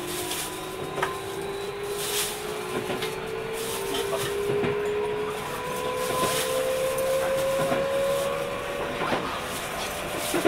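Running sound inside a Keio 5000-series electric train car: the motor whine rises slowly and steadily in pitch as the train gathers speed, over steady wheel and track noise with a few knocks from the rails.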